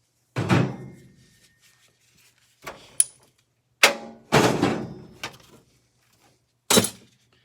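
Heavy thunks and clanks of miter saw parts being handled and set down on a hard surface. There are about six separate knocks, each with a short ringing decay; the loudest come about half a second in and about four and a half seconds in.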